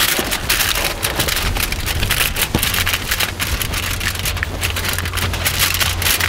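Aluminium foil crinkling and crackling as it is pressed down and tucked around the edges of a foil baking tray, a dense run of small crackles throughout.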